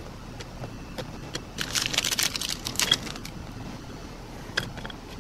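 Hershey's milk chocolate bar being snapped into pieces by hand and set down on graham crackers on a plate: a scatter of small clicks and snaps, a quick flurry of them about two seconds in.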